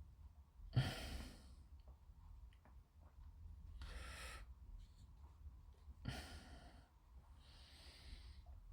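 A person breathing out heavily close to the microphone: three or four sighing exhales about two to three seconds apart, over a faint low hum.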